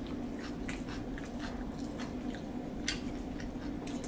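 Close-up eating sounds: chewing a rice dish eaten by hand, with frequent short wet lip smacks and clicks at an irregular pace, over a steady low hum.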